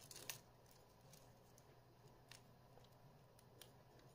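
Near silence with a few faint, scattered clicks, one a little clearer just after the start, from hands handling and seating a plastic tape reel in an opened VHS cassette shell.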